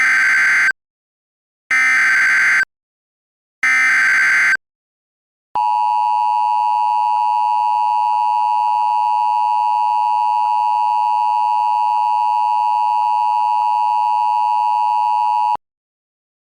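Emergency Alert System header: three short bursts of screechy digital data tones, each about a second long and a second apart. Then a steady electronic attention tone sounds for about ten seconds and cuts off abruptly.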